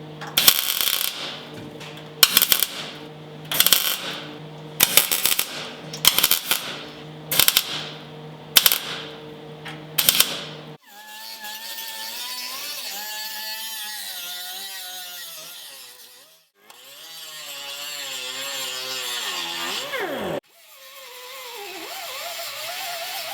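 MIG welder laying a series of short tack welds on sheet steel: about nine brief bursts roughly a second apart over a steady hum. About eleven seconds in, it cuts to guitar-led background music.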